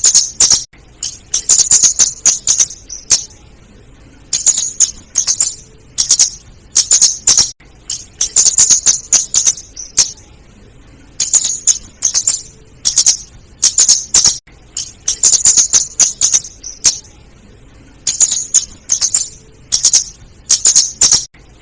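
Female flowerpecker (burung cabe / kemade) calling, a rapid run of high-pitched chips and ticks in bursts about a second long, repeated every second or two. It is a lure call of the female, used to draw in or stir up other flowerpeckers.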